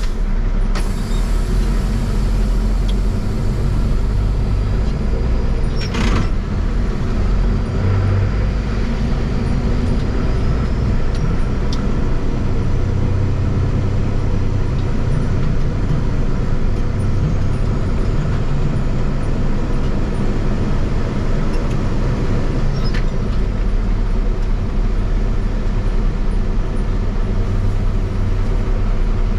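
A truck's engine running and road noise as it drives, a steady low rumble, with a sharp knock about six seconds in and another near twenty-three seconds.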